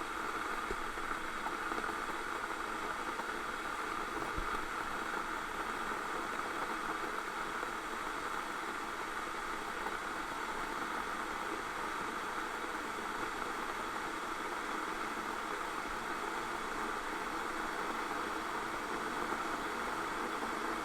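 Electric kettle heating water: a steady, even hiss with a low rustle beneath it.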